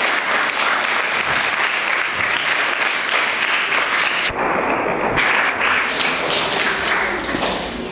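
Audience applauding, a steady clapping that sounds briefly duller about halfway through.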